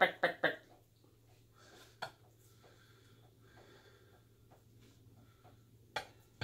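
Quiet handling of a raw whole chicken being worked onto a rotisserie spit: a few short soft knocks and clicks, several right at the start, one about two seconds in and one near the end, over a faint low steady hum.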